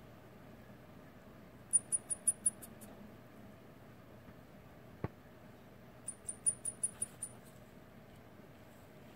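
Baby long-eared hedgehog calling for its mother with rapid, very high-pitched peeps, in two runs of about six each, the distress call of a hoglet separated from its mother.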